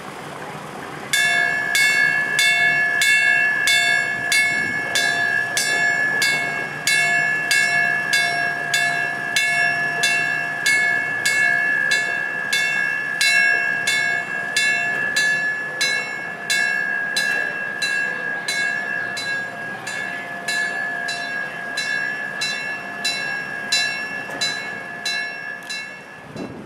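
A railroad bell ringing steadily, struck about twice a second, each stroke leaving a clear ringing tone, with a faint low hum beneath it for the first half.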